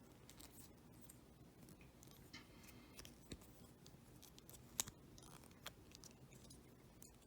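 Faint clicks and creaks of a small plastic Transformers Micromaster figure being handled and folded into jet mode, with a sharper click near five seconds in.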